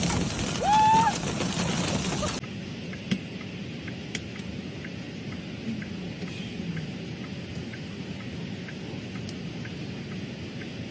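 Storm noise of wind and rain. A brief pitched tone rises and holds about a second in. After an abrupt cut it gives way to quieter, steady rain-like noise with scattered sharp ticks.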